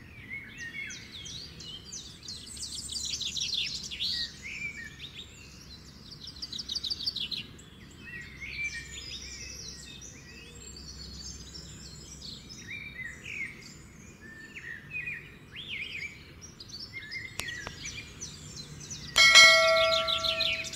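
Small birds chirping and trilling continuously. About 19 seconds in, a bright notification-bell chime sound effect rings out over them, the loudest sound.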